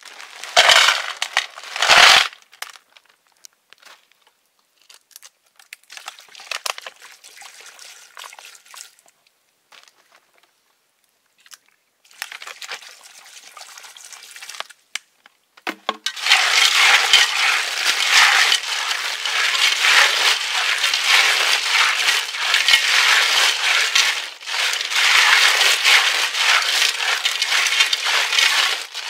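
Snails cooking in a hot pan. First come a couple of sharp clatters and some light scraping, then about halfway through a loud, dense sizzle starts and keeps on.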